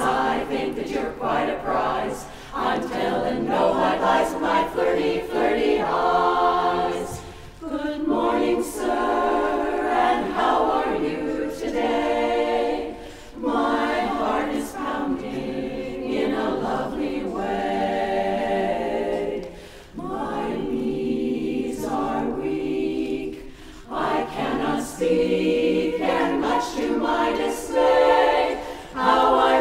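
Women's barbershop chorus singing a cappella in harmony, in sustained phrases with brief breaks between them.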